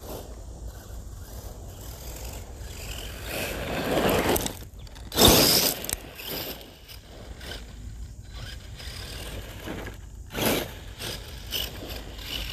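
Radio-controlled mud truck driving over a gravel road, its tyres crunching and scraping over loose stones. It is loudest as it passes close, about five seconds in, with another short burst near ten seconds.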